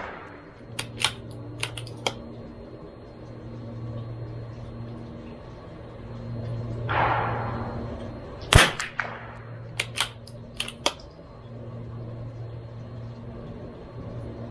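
A CZ 457 MTR bolt-action .22LR rifle fires a single shot of Eley Match about two-thirds of the way in; it is the loudest sound. A quick series of metallic clicks follows as the bolt is worked to extract the case and chamber the next round, and a similar set of bolt clicks comes near the start, after the previous shot. A steady low hum sits underneath.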